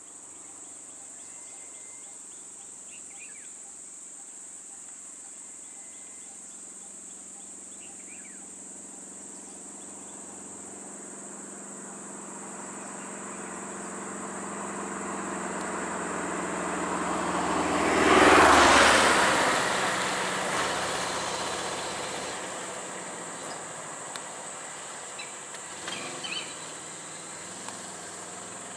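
Vehicle engines idling under a steady high-pitched insect drone. Another vehicle approaches, drives past close by about eighteen seconds in, and fades away. A few light knocks come near the end.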